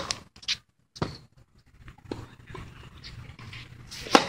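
Tennis serves: the racket strikes the ball with a sharp pop, together with the player's short grunt, right at the start and again about four seconds in, with a lighter knock about a second in.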